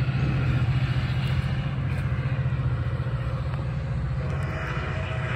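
MARC MP36PH-3C diesel locomotive's engine rumbling with a fast, even pulse as the train pulls away, slowly fading.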